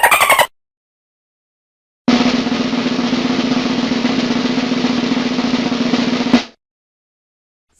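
Snare drum roll sound effect, a fast even rattle lasting about four seconds and ending on a sharp hit. Before it, a pulsing tone with falling pitch cuts off half a second in.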